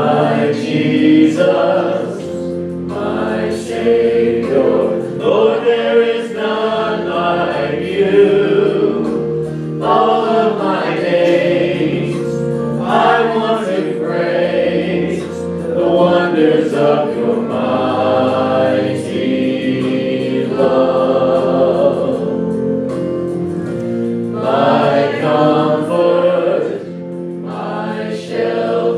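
Church worship music: a group of voices singing a song together over steady, sustained instrumental accompaniment.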